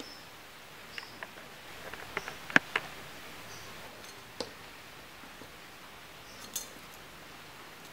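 Scattered light clicks and taps as a paracord watch band, with its watch case and plastic buckle, is handled and set down on a wooden slat mat. A cluster of clicks falls in the first few seconds, with the sharpest tap about two and a half seconds in, over a faint steady hiss.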